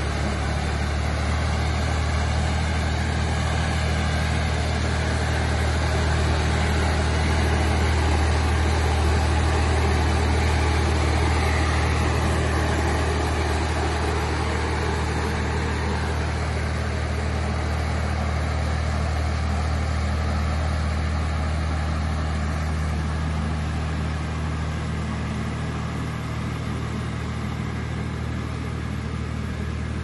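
Tractor engine running steadily under the loud rushing air of a tractor-mounted blower sprayer's fan as it sprays. The sound eases down a little over the last several seconds.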